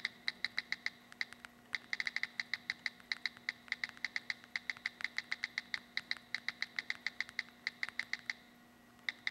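iPhone 3G on-screen keyboard key clicks as a text message is typed: a fast, even run of short, pitched ticks, several a second, with a brief pause near the end.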